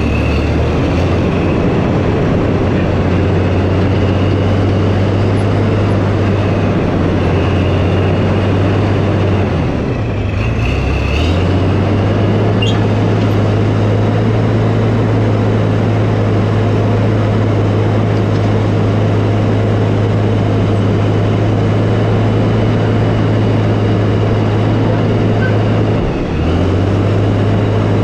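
Diesel engine of a tracked earthmover running steadily and loudly under load, with a brief drop in engine speed about ten seconds in and again near the end.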